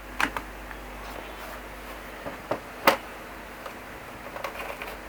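Steady faint room hum with a few scattered light clicks or taps, the sharpest one about three seconds in.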